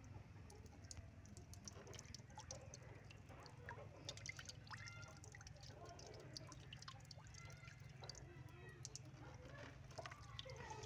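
A squeezed water balloon spurting a thin jet of water through a small hole, the water splashing and dripping into a plastic tub of water as many small, faint ticks.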